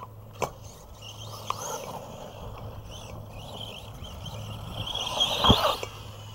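Arrma Big Rock RC monster truck running over a dirt yard track and taking a ramp jump, with a few knocks and one sharp thump about five and a half seconds in, the loudest sound. Birds chirp throughout.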